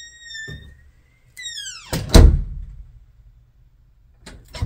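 A door swinging shut with a long, drawn-out hinge creak that rises, holds, then falls, followed about two seconds in by a loud slam. A few lighter knocks come near the end.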